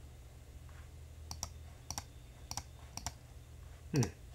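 Sharp clicks from a computer in use, several in quick pairs, over a steady low hum. About four seconds in comes a short, low sound that falls in pitch, the loudest moment.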